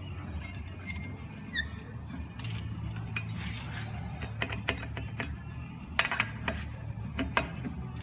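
Hex key turning the crank bolt of a Rotor crankset: scattered sharp metal clicks and ticks, bunched in the second half, with a couple of short squeaks early, over a low steady hum.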